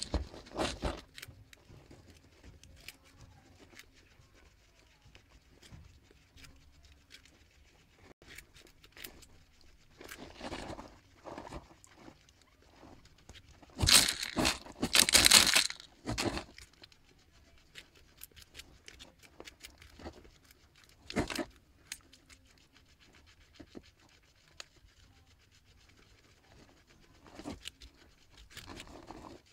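Guinea pigs chewing carrot, a steady scatter of small crisp crunches. About halfway there is a louder stretch of rustling and scraping lasting a couple of seconds.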